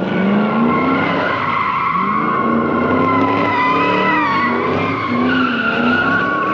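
Car tyres squealing in a long, wavering screech while the car's engine revs up and down underneath, as at a drift or burnout.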